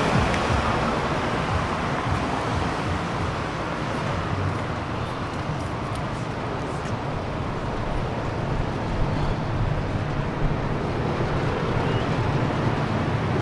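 Steady street traffic noise from passing cars, an even wash of road sound with no single event standing out.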